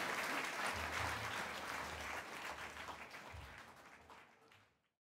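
Audience applauding, the clapping fading away to silence near the end.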